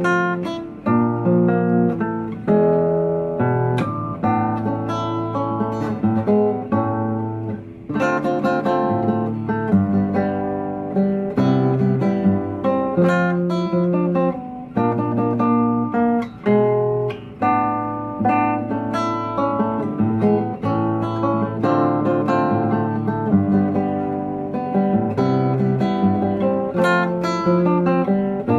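Background music: acoustic guitar playing a continuous run of picked notes and chords.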